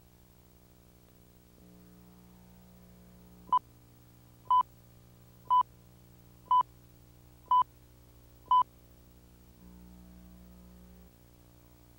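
Six short, identical beeps, one a second, over a steady low hum: the beeps of a videotape leader before the programme starts.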